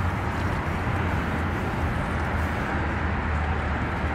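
Steady low hum under a constant hiss of background noise, with no distinct events.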